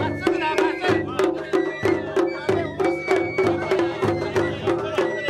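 Japanese festival hayashi music from a dashi float: taiko drums beat a brisk, steady rhythm of about three strokes a second, with a high held melody line over them.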